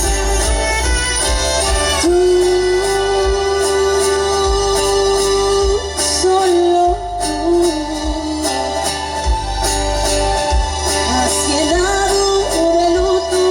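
Live band playing a Tejano-style ballad with a lead vocalist singing over it. The vocalist holds one long note for about four seconds, then moves through shorter phrases over a pulsing bass.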